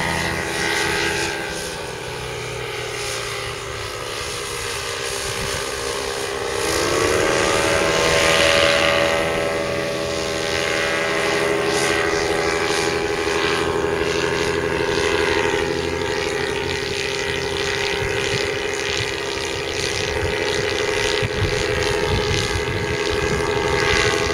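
Bailey V4-200 four-stroke paramotor engine and propeller running in flight. The note sags over the first few seconds, then climbs sharply about seven seconds in and holds steady at the higher pitch.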